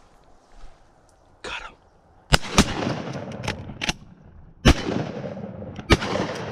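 Shotguns firing at geese: several blasts in quick succession, beginning about two seconds in, each with a ringing echo.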